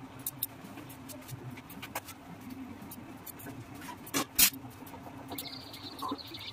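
Chopped vegetables are tipped into a kadai on a gas stove with two sharp clinks about four seconds in. A faint sizzle starts in the pan about a second later. Small kitchen clicks and a steady low hum run underneath.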